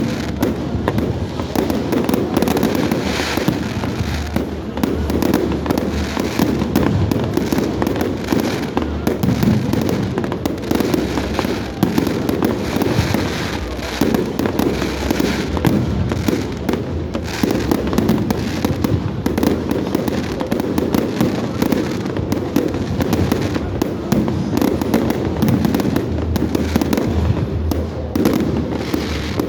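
Fireworks display going off without a break: many overlapping bangs and crackles from aerial shells bursting.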